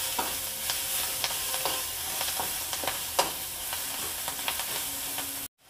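Onion, garlic and spring onion sizzling in hot oil in a kadai while a metal spatula stirs them, scraping and clinking against the pan at irregular intervals. The sound cuts off suddenly near the end.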